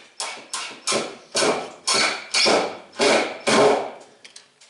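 Hammer knocking on plastic shop vac parts: about nine blows roughly half a second apart, getting louder, followed by a few faint clicks.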